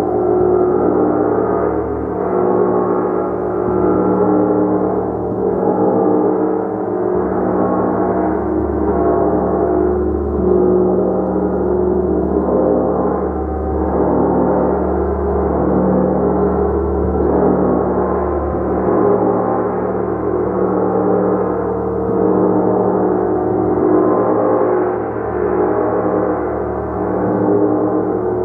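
A large gong played continuously in a sustained wash, many overlapping tones swelling and ebbing with no break.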